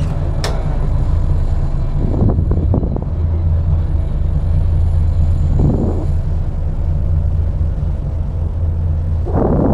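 Car ferry's engines running with a steady low drone, with a few short sounds over it about two, six and nine seconds in.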